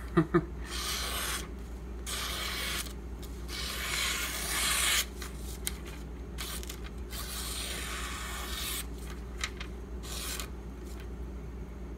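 Freshly sharpened Ganzo folding knife, its convexed 440C steel edge slicing through three stacked sheets of glossy flyer paper: a series of slicing strokes, the first three longer and louder, then shorter, fainter ones. These are test cuts on which the owner keeps feeling a snag at one spot on the edge.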